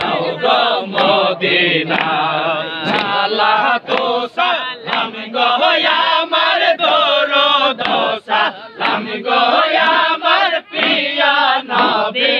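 A large crowd of men chanting zikr together, loud and continuous, with a steady pulsing rhythm of repeated phrases.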